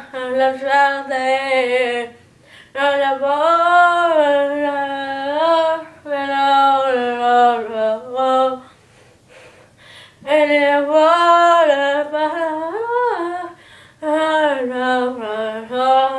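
A boy singing a melody on his own, with no accompaniment, in phrases a few seconds long broken by short pauses.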